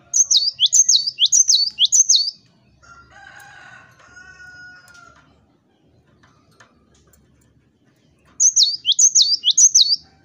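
Cinereous tit (gelatik batu) singing: two loud bouts of quickly repeated whistled notes, each sweeping sharply down in pitch. The first bout has about five notes at the start and the second about four near the end. Between them comes a fainter drawn-out call.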